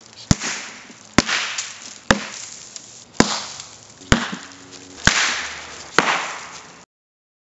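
Seven sharp cracks about a second apart, each followed by a short hissing rush that fades away; the sound cuts off suddenly near the end.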